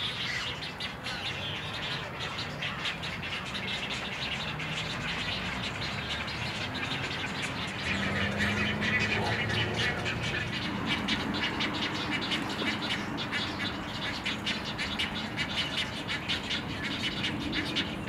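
Birds of an egret rookery calling together: a continuous dense chatter of rapid clicking and chirping calls, with lower-pitched calls joining about eight seconds in.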